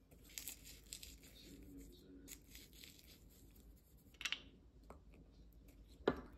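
Toasted sesame seeds crushed between the fingers and sprinkled into a glass measuring cup of soy marinade, a dry crackling rustle. Near the end a wooden-handled spoon goes into the cup to stir and knocks once against the glass.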